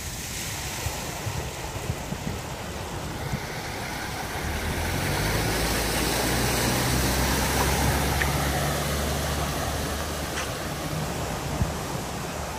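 A car driving through a flooded street: its tyres push through the standing water with a continuous wash and spray, and its engine hum rises as it passes close by around the middle, then eases as it moves away.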